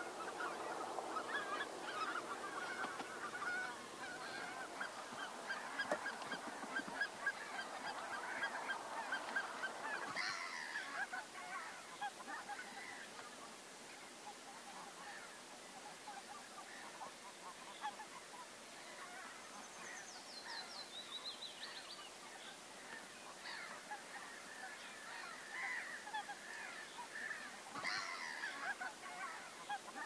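A flock of geese calling: a dense chorus of honks for the first ten seconds or so, thinning to scattered calls, then a fresh burst near the end. A brief high, falling trill about twenty seconds in.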